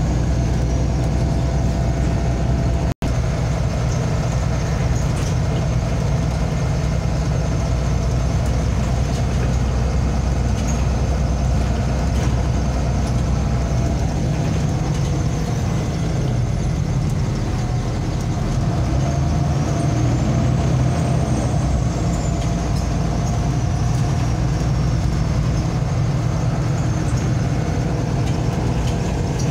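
Inside a MAZ-203 city bus on the move: steady diesel engine and road rumble with a thin, steady whine. The sound cuts out for an instant about three seconds in.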